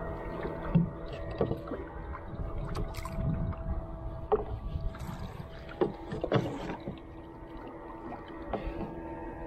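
A single wooden paddle working a small wooden canoe: irregular paddle splashes and knocks against the hull over water wash and a steady low hum.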